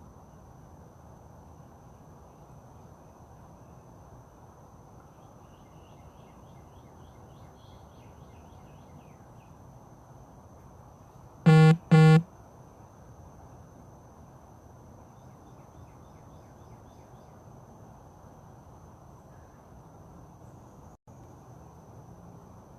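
Two short, loud, buzzy beeps about half a second apart, like a double toot of a horn, about halfway through. Behind them, a steady outdoor background with a high continuous whine and a few faint chirps.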